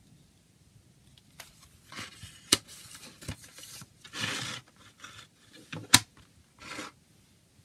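Plastic CD jewel case handled: the paper booklet slid back in with rustles and scrapes, then sharp plastic clicks, the loudest about six seconds in as the case is snapped shut.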